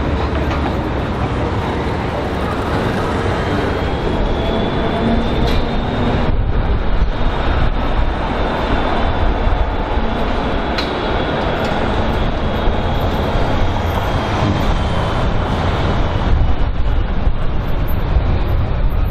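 GVB articulated street tram passing close on its rails: a steady rumble of wheels on track, with a thin high whine that rises and then falls over most of the pass.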